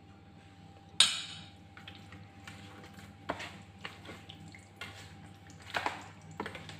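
A metal spoon clinks sharply once about a second in, with a short ring. Then come wet squelching and soft knocks as yogurt is mixed by hand into raw chicken pieces in a baking pan.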